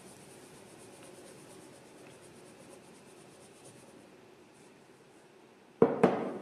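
Flour pouring from a cup into a pot: a soft, steady hiss that fades about four seconds in. Near the end come two sharp knocks a quarter of a second apart, louder than the pouring.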